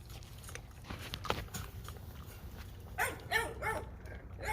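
Two-month-old American Bully puppies whining and yipping, a cluster of short cries about three seconds in, with a few faint knocks before.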